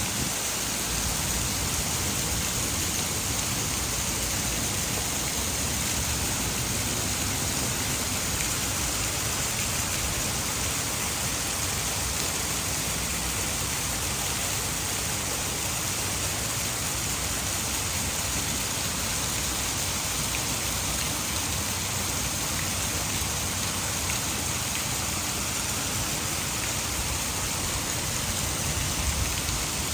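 Heavy rain falling steadily, mixed with the rush of water pouring from a hydroelectric dam.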